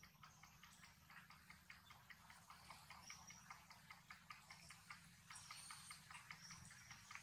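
Baby long-tailed macaque suckling at its mother's breast: a faint, rapid run of soft wet clicks, several a second.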